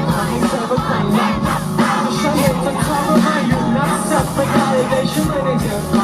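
Live pop-rock band playing, with drums keeping a steady beat and crowd noise from the audience.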